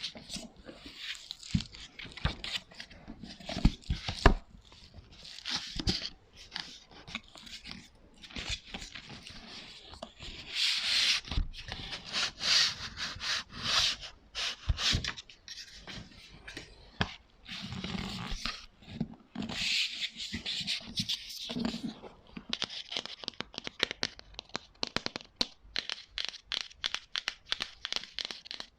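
Close-up ASMR tapping and scratching on assorted props: quick irregular taps and clicks, with two longer stretches of rubbing or scratching in the middle.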